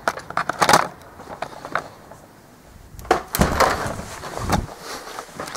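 Camera handling noise: a cluster of sharp clicks and knocks at the start, then a louder bout of rubbing and low thumps about three seconds in as the camera is moved.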